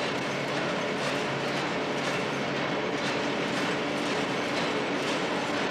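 Tea-bag packing machines running in a factory: a dense, steady mechanical clatter over a low hum.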